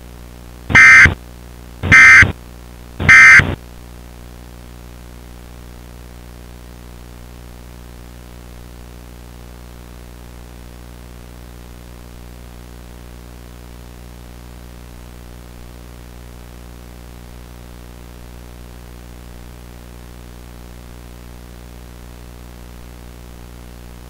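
Emergency Alert System digital data tones: three short buzzing bursts about a second apart, the SAME end-of-message code that closes an alert. After them a steady low hum runs on.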